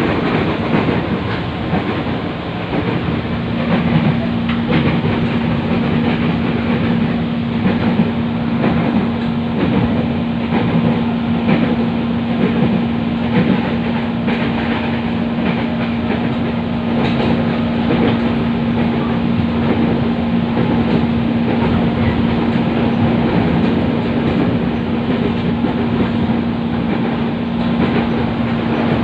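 Inside a KRL Commuter Line electric commuter train car as it runs: the steady rumble and rattle of the moving train, with a constant hum that sets in about three seconds in.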